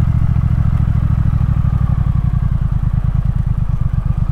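Triumph Thruxton R's 1200 cc parallel-twin engine running at low revs as the bike rolls slowly. Its exhaust beat is steady and grows more distinct about halfway through.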